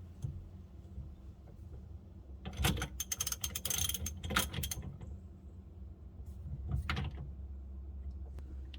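Hand socket ratchet clicking in quick strokes as a nut or bolt is run down on the steering wheel hub: a long run of clicks a few seconds in and a shorter run near the end.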